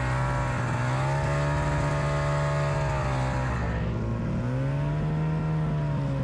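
Snowmobile engine running as the sled is ridden along a snowy trail. Its pitch dips about three seconds in and climbs again a second or so later as the throttle is eased and opened.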